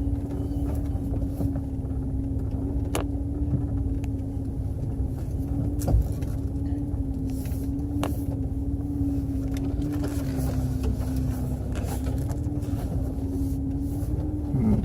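Off-road vehicle's engine running at a low, steady speed while crawling along a trail, a constant drone with a steady hum. A few sharp knocks sound over it.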